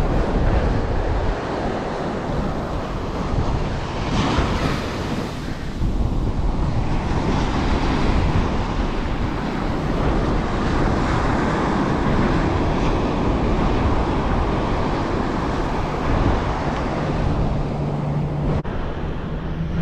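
Ocean surf breaking and washing up a sand beach, with wind buffeting the microphone.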